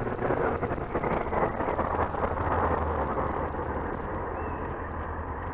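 Wind noise rushing over a helmet-mounted microphone while riding a Yamaha R6, with the bike's inline-four engine running steadily underneath. It eases off slightly toward the end.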